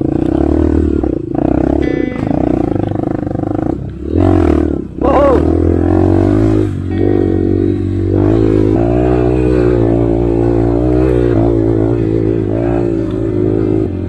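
Honda CRF150L dirt bike's single-cylinder four-stroke engine running on the trail, its pitch rising and falling as the throttle opens and closes. There is a couple of quick rev blips with brief drops in between around four to five seconds in.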